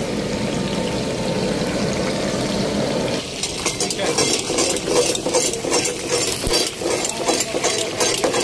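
Chicken pieces frying in hot oil in a karahi, sizzling steadily. From about three seconds in, a metal spatula scrapes and clatters against the pan in quick irregular strokes as the meat is stirred.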